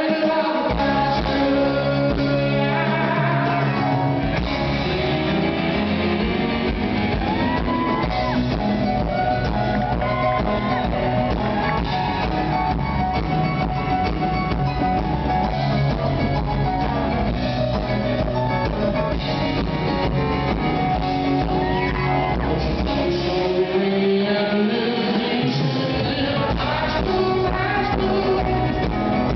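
Live rock band performing: a male lead vocal over keyboard, electric guitar and bass, recorded from within the concert audience. The low bass drops away briefly near the end.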